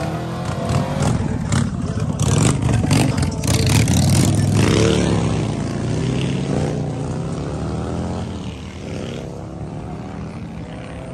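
Car engine revving hard, its pitch rising and falling, with sharp crackles between about one and four seconds in; it settles lower and quieter near the end.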